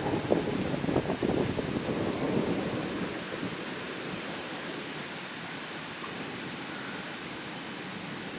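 Thunder rumbling and crackling over steady rain, the rumble dying away about three seconds in and leaving the even hiss of rain.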